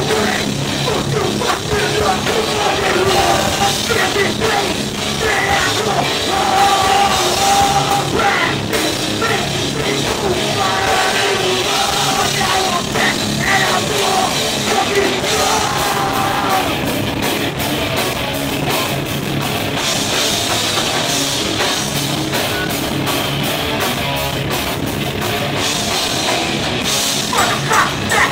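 Live hardcore band playing loud: distorted electric guitars, bass and a drum kit, with a vocalist shouting into the microphone.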